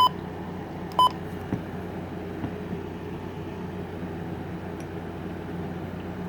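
Two short electronic beeps about a second apart, over a steady low hum.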